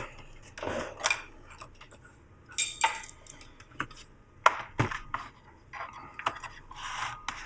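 The plastic case of an Apple Extended Keyboard II clicking and rattling as it is lifted, flipped over and set down on a desk, with a dull knock about five seconds in.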